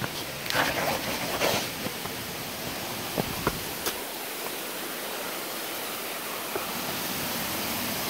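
Steady rush of a waterfall and stream, growing slightly louder near the end. In the first couple of seconds there are a few scuffs of footsteps on rock, and a few light clicks come around the middle.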